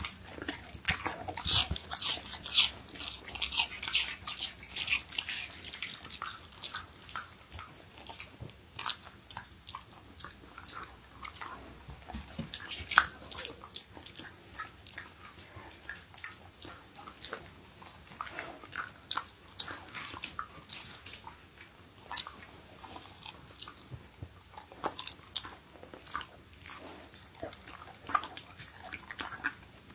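Siberian husky biting and chewing apple: wet, crisp crunches, coming thick and fast for the first few seconds, then in irregular bursts.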